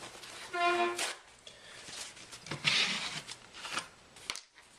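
Handling sounds from wiping down the phone's screen frame with alcohol: a rustling swipe and several light clicks and taps. A short steady pitched note sounds about half a second in.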